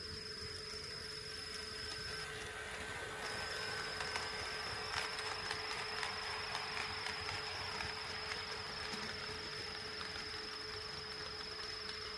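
HO-scale model train running past on the layout, its wheels clicking faintly over the track joints from about four to nine seconds in, over a steady high-pitched whine.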